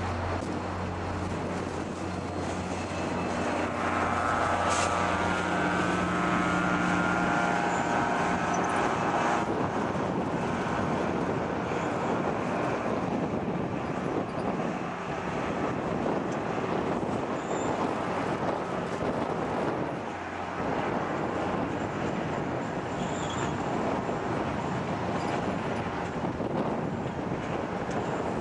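Diesel commuter-rail locomotive running with a steady low hum, joined by a pitched whine for several seconds from about four seconds in. Then comes the steady rolling noise of a train of passenger coaches passing over the rails.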